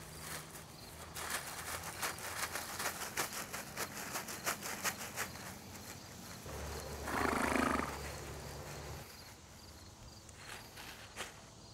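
Plastic bag crinkling in quick crackles as it shifts on the horse. About seven seconds in, the horse blows out a long snort.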